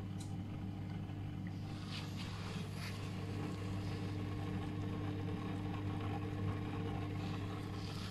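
Avenli inflatable spa's pump unit running with a steady electric hum, just switched on in antifreeze mode.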